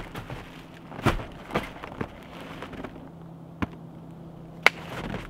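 Parcels being stacked on a cardboard box: sharp knocks and thumps as plastic-wrapped mailers and small boxes are set down, with plastic crinkling between them. Fewer, isolated knocks follow in the second half.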